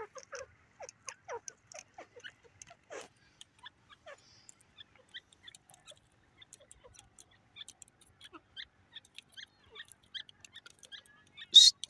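Grey francolins giving soft, scattered clucking notes, then a loud, shrill call begins near the end.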